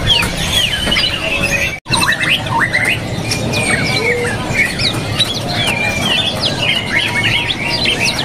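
Many caged songbirds chirping and calling at once: short, quick, rising and falling chirps overlapping continuously over a low background hum, cut off for an instant about two seconds in.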